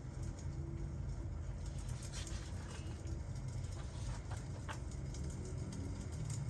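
Crackling wood fire with rain: a steady low rumble and hiss, with a few scattered sharp pops from the burning wood.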